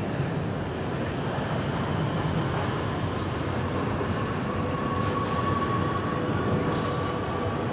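Metra bilevel commuter train rolling out of the station past the platform, a steady rumble of steel wheels on rail. A faint thin steady tone joins about four seconds in and holds to the end.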